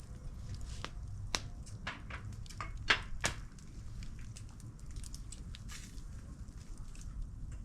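Barbecue fire crackling under a whole lamb on the grill, with irregular sharp pops, the loudest about a second and a half and three seconds in, over a steady low rumble.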